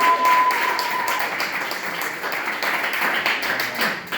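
Audience applauding, a dense patter of many hands clapping. One held high note sounds over the clapping for about the first second.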